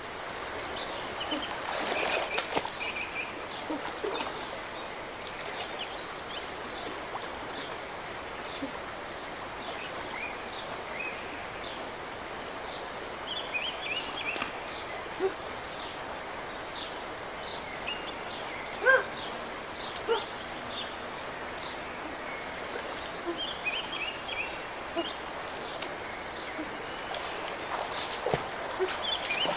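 Steady rush of a shallow stream with birds chirping over it, and water splashing as someone wades through it, loudest about two seconds in and again near the end.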